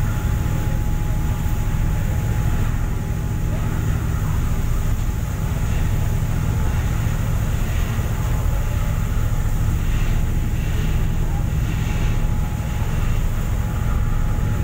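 Steady low rumble of a passenger ship under way, with rushing water from its wake.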